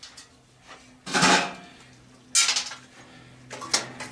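Metal clanging as the steel parts of a furnace's blower motor and housing are knocked and pried apart: two loud ringing clangs about a second apart, then a few lighter clinks near the end.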